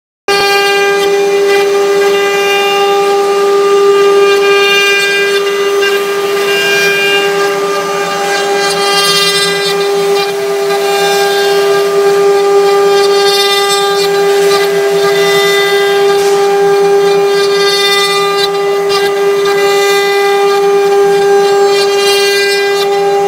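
The water-cooled 1.5 kW spindles of a six-head wood CNC router run with a steady, high-pitched whine while their bits carve relief into wooden boards. A hiss of cutting swells and fades every few seconds over the whine.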